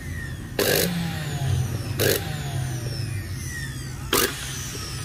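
Mixer grinder motor being tested on mains power: three short, loud, noisy bursts, about a second and a half apart, over a steady low hum.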